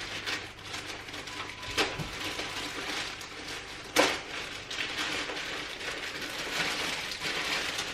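Packaging being handled during an unboxing: continuous rustling, with two sharper knocks, about two and four seconds in.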